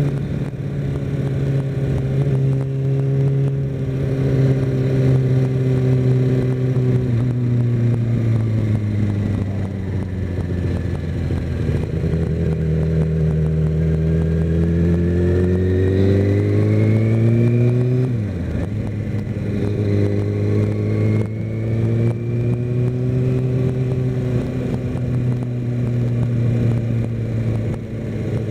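Kawasaki Ninja ZX-6R's inline-four engine running under way, its note holding steady, sinking as the bike slows about eight seconds in, then climbing under acceleration and dropping sharply at an upshift about eighteen seconds in before settling back to a steady cruise.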